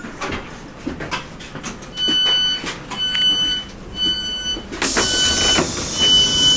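Class 156 Super Sprinter passenger door alarm sounding as the door is released: a steady high beep about once a second, five times, warning that the door is opening. A strong hiss comes in near the end as the sliding door opens.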